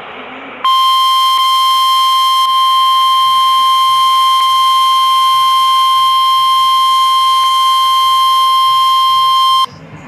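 A moment of radio hiss, then the NOAA Weather Radio warning alarm tone: a single steady, loud 1050 Hz tone held for about nine seconds before cutting off abruptly. The tone signals that an urgent warning broadcast, here a tornado warning, is about to follow.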